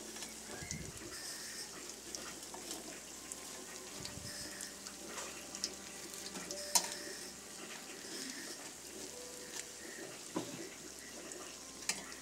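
Cheese sticks frying in hot oil in a wok: steady sizzling with scattered crackles, and one sharper pop about seven seconds in.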